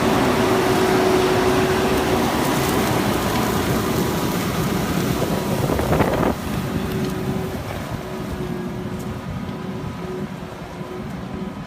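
Fendt 724 tractor's six-cylinder diesel engine running steadily under load while pulling a six-furrow reversible plough. The sound drops suddenly about six seconds in, then fades slowly as the tractor moves away.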